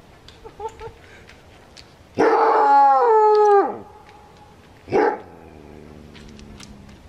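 A trapped coyote calls at an approaching person: one long, loud call about two seconds in that drops in pitch in steps over about a second and a half, then a single short bark a little over a second later.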